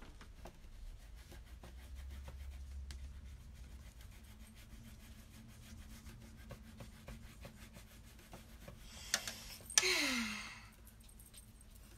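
Faint light scratching and tapping of colouring tools on paper at a table. About nine seconds in comes a breathy sigh whose voice falls in pitch, with a sharp click in the middle of it.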